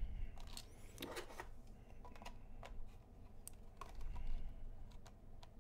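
Faint, irregular clicks and taps of plastic as the casing of a Sony WM-EQ3 Walkman cassette player is handled and turned in the hands.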